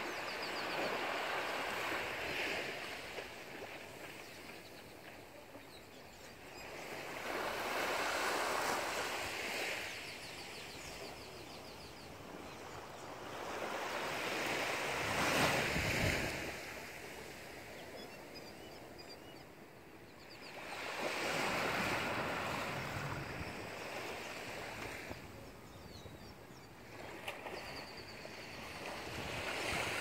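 Small waves breaking gently and washing up a sandy beach, one every six to seven seconds, with a soft hiss of water between them.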